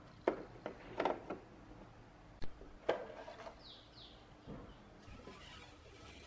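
Plastic casing of a moving-head beam light being handled and its yoke-arm cover pulled off: a string of sharp clicks and knocks in the first three seconds and a softer knock later. Two short high chirps sound just past the middle.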